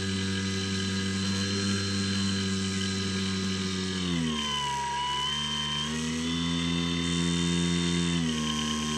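Electric motor and propeller of a Skywalker X7 flying-wing model plane in flight, a steady pitched whine whose pitch drops about four seconds in, rises again about two seconds later, and drops once more near the end as the throttle is changed.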